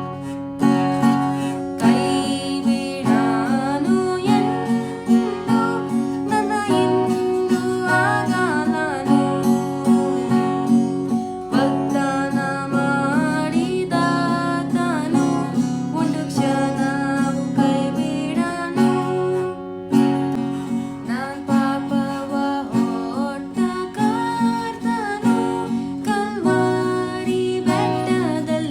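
A voice singing a Kannada worship song over a steadily strummed acoustic guitar.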